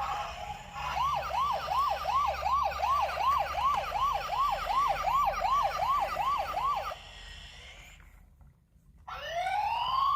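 Electronic toy police car siren in a fast yelp, about three rising whoops a second, stopping about seven seconds in. After a short pause, a slow rising wail starts near the end.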